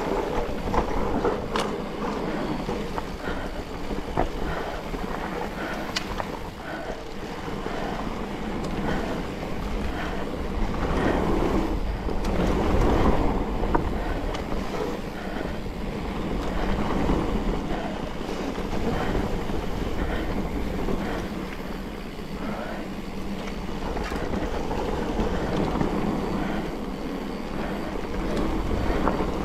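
Electric mountain bike riding down a dirt trail: tyres rumbling over the ground, the bike rattling and clicking over bumps, with wind buffeting the microphone.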